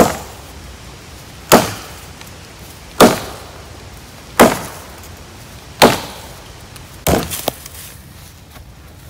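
Axe chopping into a fresh-cut log: six sharp blows about one and a half seconds apart, the last one weaker and followed by a couple of lighter knocks.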